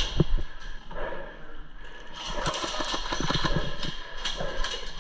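Airsoft guns firing: a few sharp cracks in the first second, then a denser, irregular run of them through the second half.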